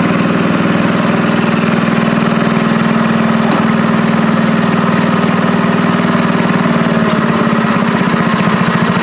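Bolens 650 garden tractor's engine running steadily, with the drive shaft and brake hub spinning during a test of a newly fitted brake shoe. The brake isn't grabbing: there is not much friction on the dirty hub surface.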